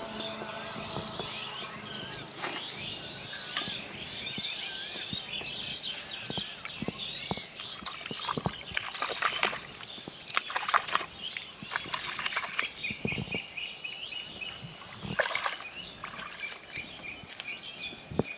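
Small birds chirping and calling, with a cluster of short water splashes about halfway through as a pole is worked in the pond, and one more sharp splash later.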